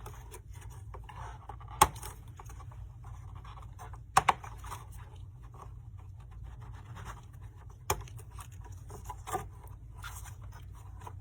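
Small scratching and scraping handling sounds with three sharp clicks, about two, four and eight seconds in: cable connectors being worked loose and unplugged from a desktop motherboard.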